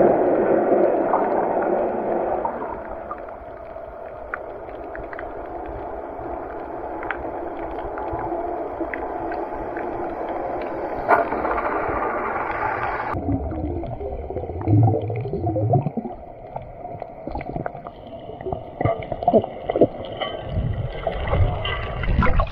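Muffled underwater sound from a camera held below the surface in clear shallow sea water: a steady rush of water with scattered small clicks, then uneven low bumps and gurgles of water moved by the snorkeller's hands and body, loudest near the end.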